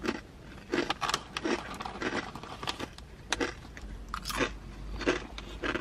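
Someone chewing Chick-fil-A waffle-cut potato chips: a run of sharp, dry crunches, about two a second.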